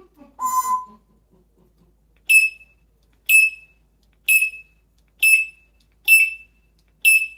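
Six short, high, alarm-like beeps about a second apart, like a smoke alarm's chirp, after a brief lower tone near the start.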